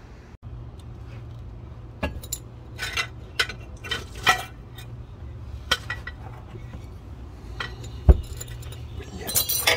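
Metal hand tools clinking and knocking, a socket and ratchet being handled, in short irregular clicks with a heavier thump about eight seconds in. A steady low hum runs underneath.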